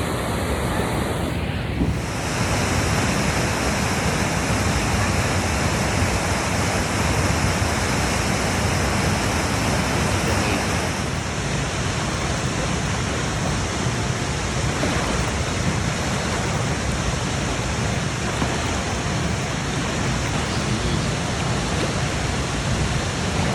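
Steady rushing roar of a waterfall: a dense, even noise with no breaks. Its tone shifts slightly about two seconds in and again near the middle.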